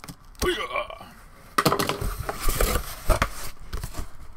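Cardboard shipping box being opened by hand: after a quiet start, the flaps are pulled apart with dense scraping and rustling of cardboard and tape, dotted with a few sharp knocks, from about a second and a half in.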